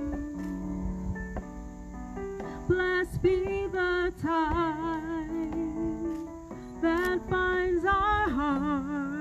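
Live music: a woman singing a slow song with wide vibrato over sustained electric keyboard chords.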